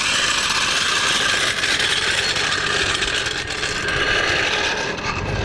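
A floor jack being wheeled across pavement, its metal wheels making a loud, steady rattling and scraping.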